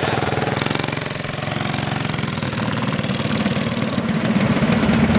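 Small mini bike engine running. It slows and drops in level about a second in, then picks up again from about three seconds.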